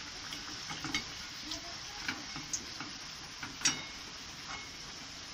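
Potatoes frying in hot oil in a kadai, a steady sizzle, with light clicks and scrapes of a metal spatula against the pan as the fried potatoes are scooped out. The sharpest click comes a little before 4 s in.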